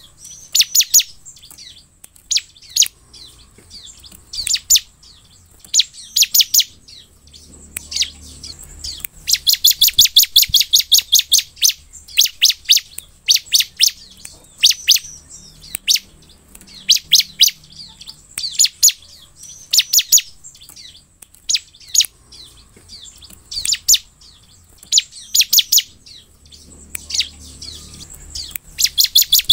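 Bar-winged prinia (ciblek) calling: sharp, high chirps repeated in quick runs, with the fastest and longest run about ten seconds in.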